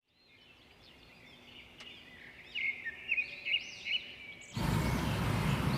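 Small birds chirping in quick rising-and-falling calls that fade in and grow louder. About three-quarters of the way through, the sound switches suddenly to a steady outdoor noise heavy in the low end.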